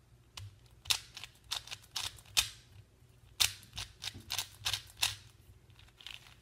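A plastic 4x4 Fisher cube, a shape-mod twisty puzzle, being turned by hand for its first turns: a string of irregular clicks and clacks as the layers are turned, about two to three a second.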